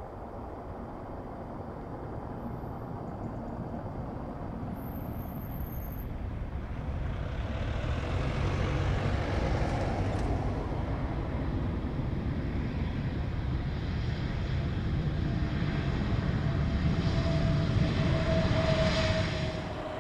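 Airbus A320neo-family airliner's jet engines roaring through the landing rollout after touchdown. The roar builds, then swells to its loudest with a steady whine joining in near the end, and cuts off suddenly just before the end.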